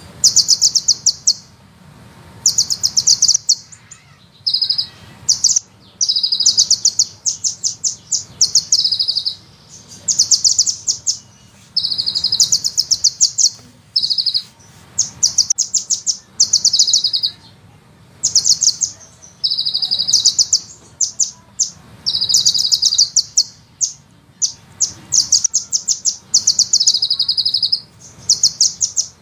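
Sunbird singing: very fast, high-pitched rattling trills in phrases of about a second, repeated again and again with short pauses between them.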